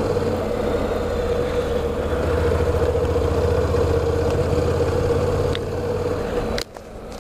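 Honda NC700X motorcycle's parallel-twin engine running steadily under way on a dirt road, a constant low hum. Near the end the sound drops off suddenly, then starts to pick up again.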